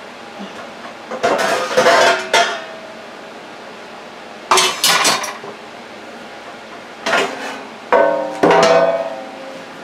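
Metal pans clanging and clattering in several bursts as a stainless-steel baking pan is pulled out from among other cookware; the louder knocks leave a short metallic ring.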